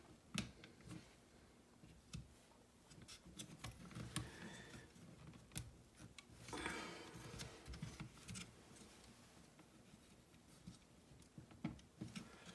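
Faint scattered clicks and taps of small hard-plastic door lock actuator parts being handled and fitted together, with a short rustle about halfway through.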